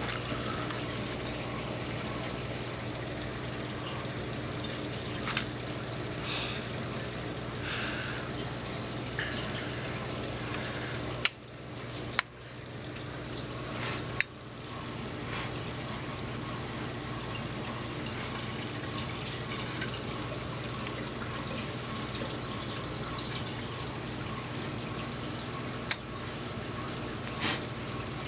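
A saltwater aquarium's water circulation runs steadily, trickling and dripping over a constant pump hum. A few sharp clicks come near the middle, and one more comes near the end.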